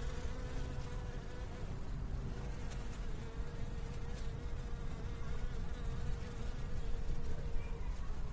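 Steady, low running-water ambience with a faint, steady buzzing tone over it that fades out near the end.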